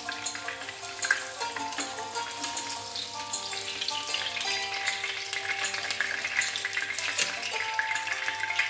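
Salmon steaks sizzling in hot frying oil in a pan, with background music of long held notes over it.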